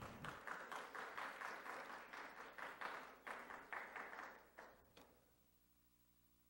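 Audience applauding, many hands clapping at a moderate level, fading out about five seconds in and leaving only a faint steady hum.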